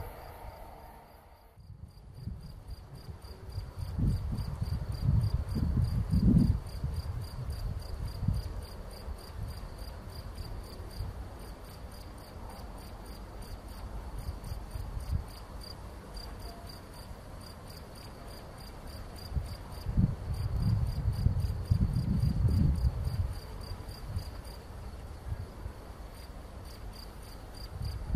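Insects chirping in a steady, evenly pulsing high trill. Low rumbles of wind on the microphone come in gusts about four seconds in and again around twenty seconds.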